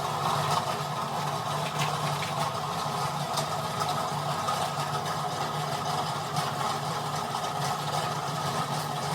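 A motor-driven machine running steadily, starting abruptly at the beginning, with a low steady hum and a fine rapid rattle.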